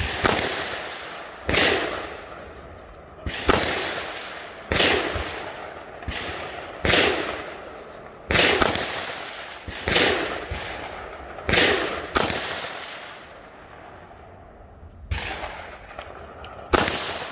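AR-style rifle firing about a dozen single shots at a steady pace, roughly one every one to two seconds, each crack followed by a long echo. A few shots near the end are weaker.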